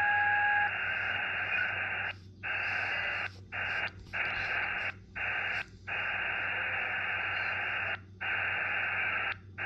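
Xiegu X6100 HF transceiver's speaker playing receiver hiss in LSB with no antenna connected. A steady whistle from an internal spur (a birdie), with an overtone, cuts off within the first second as the dial is turned. The hiss then drops out briefly several times while tuning, a skip the owner thinks is the IF moving, a function of how SDRs work.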